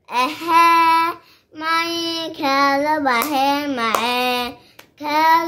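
A young boy singing an Ethiopian Orthodox Timket mezmur (hymn) unaccompanied, in drawn-out sung notes that waver in pitch, with two short breaks for breath.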